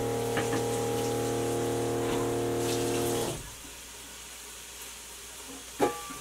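Kitchen sink tap running as a bamboo spatula is rinsed, with a steady hum under the water, shut off a little over three seconds in. A single knock near the end.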